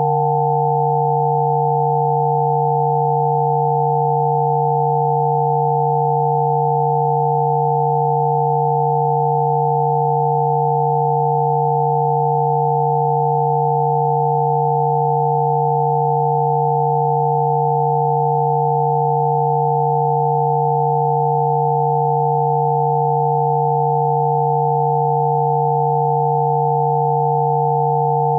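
Spooky2 Rife frequency tones: several electronically generated pure tones sound together, one low and a few higher, held steady and unchanging.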